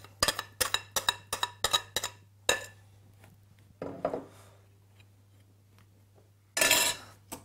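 Metal spoon knocking and scraping against a glass mixing bowl, quick sharp clicks about four a second, as beaten egg whites are worked off into a steel pan. The clicks stop after about two and a half seconds, and there is a short loud burst of noise near the end.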